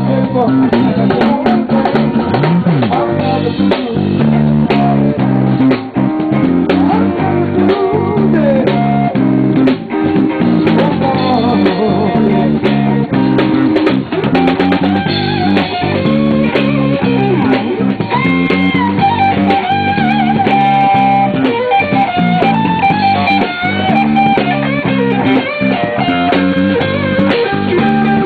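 Live electric blues band playing an instrumental passage: electric guitar takes the lead with bent notes over a drum kit and bass.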